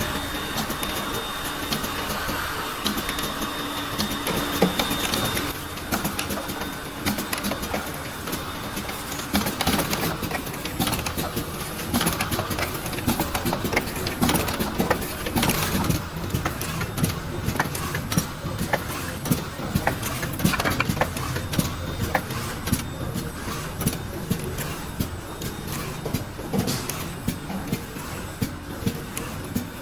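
Automatic small-bottle filling and packaging line running: a steady machine hum with many irregular clicks and clattering knocks from the moving mechanism and bottles.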